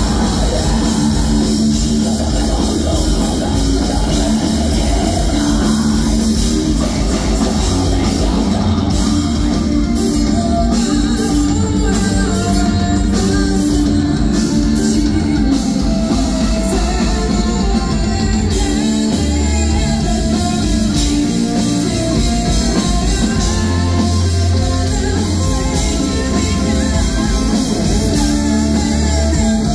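Live heavy metal band playing: a woman singing over distorted electric guitar, drum kit and keyboards, steady and loud throughout, heard from within the audience.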